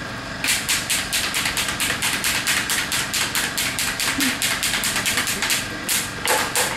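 A fast, even rhythm of short, hissing strokes, about five a second, starting about half a second in and stopping near the end.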